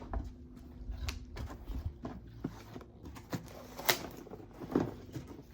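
A cardboard box and the packaging inside it being opened and handled: scattered light knocks, clicks and rustles, with a sharper knock about four seconds in.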